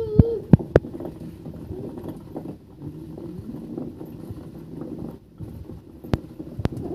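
Hand-turned stone grinding mill (chakki) rumbling steadily as chickpeas are coarsely ground. A few sharp knocks in the first second.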